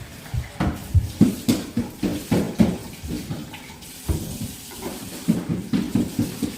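Irregular light knocks and clatter of hard objects being handled, two or three a second.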